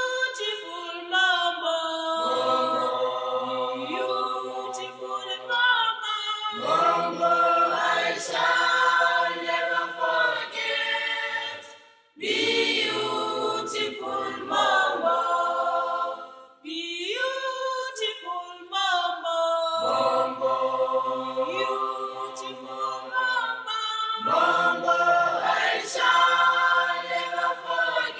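Background music: a choir singing a cappella in long phrases, with short breaks between them.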